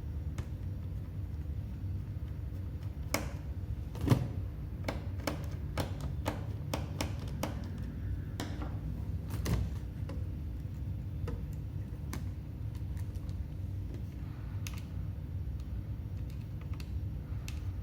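Screwdriver working the hard drive screws out of an HP ProBook 4420s laptop: a run of small clicks and taps, thickest between about three and ten seconds in, the sharpest about four seconds in, over a steady low hum.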